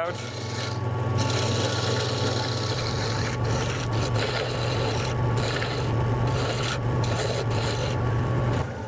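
Wood lathe motor humming while a large gouge cuts into the spinning wooden spindle blank, a continuous rough scraping of wood being shaved away as excess material is roughed off. The cutting eases off near the end.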